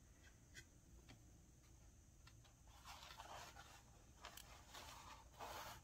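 Near silence with a few faint clicks and soft scrapes of small jewelry components, beads and chain, being handled on a work table.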